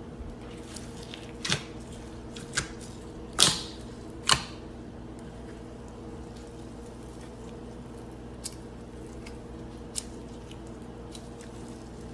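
Slime being squished and poked by hand, with four sharp wet pops or clicks between about one and a half and four and a half seconds in, then fainter ones later. A steady low hum sits underneath.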